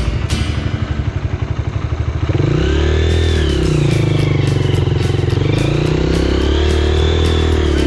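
Motorcycle engine chugging at low revs, then from about two and a half seconds in revving up and down repeatedly under throttle.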